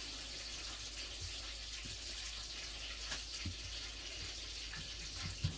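A few soft knocks of hands and a wooden rolling pin working puri dough on a counter, over a faint steady hiss.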